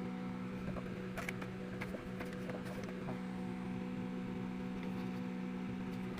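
Small electric fan motor of a homemade ice-box air cooler running with a steady hum, a few faint clicks in the first few seconds.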